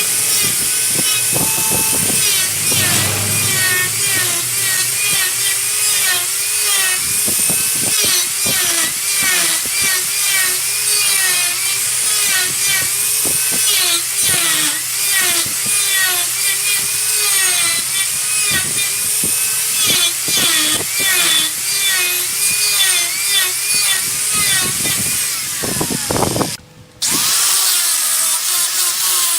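A wood lathe spins a wooden blank while a turning tool cuts into it, making a continuous scraping whine that wavers up and down in pitch over and over. The sound breaks off for a moment near the end, then resumes.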